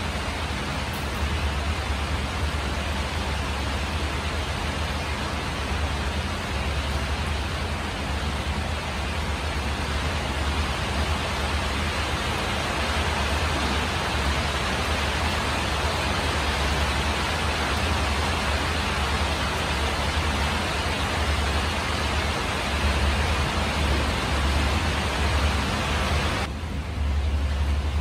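Steady rain falling on a corrugated metal roof, an even hiss over a low rumble. Near the end the hiss drops away for a moment, leaving only the rumble.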